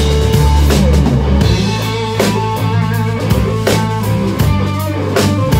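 Live rock band playing: a drum kit with strong hits about every 0.7 s over electric guitar and bass, heard from right behind the drummer.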